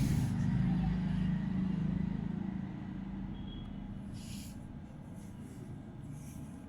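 A low motor rumble with a steady hum that fades away over the first few seconds, followed by a few short hisses.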